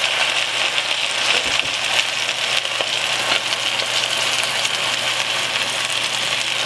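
Cabbage, carrots and turnip sizzling in a hot deep pan with chicken broth just poured in: a steady sizzle with fine crackles.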